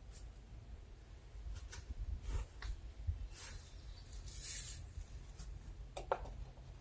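Scattered clicks and knocks of bricks being handled and set in place as a border edging, the sharpest about six seconds in. A longer crinkling rustle of plastic sheeting comes a little past halfway, over a low steady rumble.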